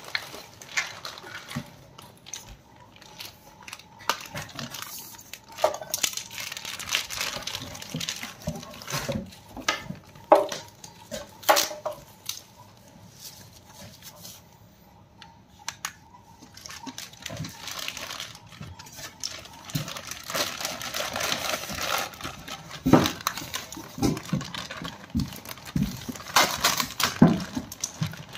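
Packaging being handled while unboxing a soundbar: plastic wrap crinkling and tearing, with irregular rustles and knocks of cardboard. It eases off for a few seconds midway and grows busier near the end.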